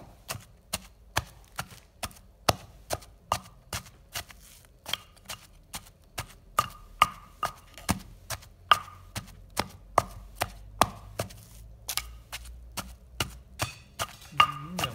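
A pestle pounding in a mortar, working fish flesh for jaew bong (Isan fermented-fish chilli paste) into a fine paste: a steady run of sharp knocks, about two to three a second, some with a short ring.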